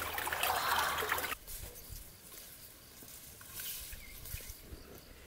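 Water trickling and splashing, cut off abruptly after about a second and a half. Then comes quiet outdoor ambience with faint insect chirping.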